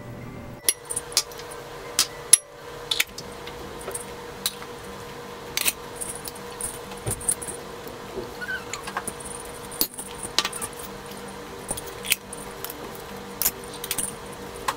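Small ceramic bowls and a metal spoon tapping and clinking against a glass mixing bowl as ground spices and oil are tipped in: sharp, irregular clinks.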